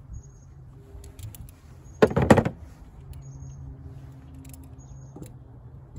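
A brief metallic clatter of locking pliers (vise grips) about two seconds in, with a few lighter clicks, as they are worked on a 2003–2009 Toyota 4Runner's seized rear wiper arm collar to pull it off its spline without heat. The collar stays stuck.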